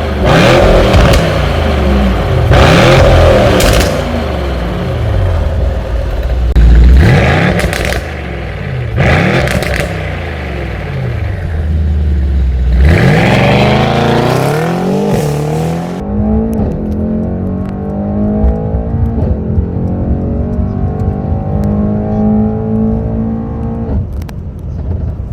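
Mercedes-AMG E63S's twin-turbo V8 through a valved iPE performance exhaust, revved repeatedly, with sharp cracks between the revs. From a little past halfway it runs more quietly with a gently wavering pitch.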